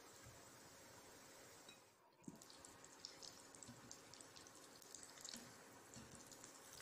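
Faint crackling sizzle of battered brinjal bajjis deep-frying in hot oil. Small pops come more often after about two seconds, with a soft knock just after that.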